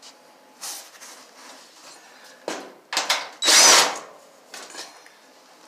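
Power drill-driver running in several short bursts, spinning off the nuts that hold the dryer's back panel, with light handling clatter between. The longest and loudest burst comes about three and a half seconds in.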